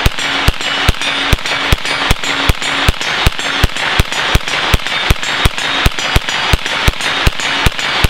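IWI Tavor bullpup with a 9mm conversion kit, fired semi-automatically and unsuppressed in a fast, steady string of about 22 shots, roughly two to three a second, each with a short echo. A brief low ring follows many of the shots.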